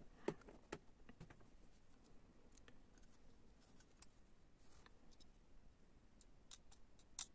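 Near silence with faint scattered clicks and taps from handling the small plastic housing of an OBD diagnostic connector and its coin-cell battery. A sharper click comes just after the start and another near the end.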